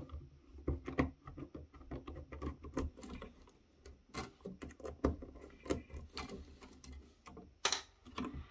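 Irregular small clicks and taps of a precision screwdriver and fingers working on the plastic housing and circuit board of a fish finder being taken apart, with a sharper click near the end.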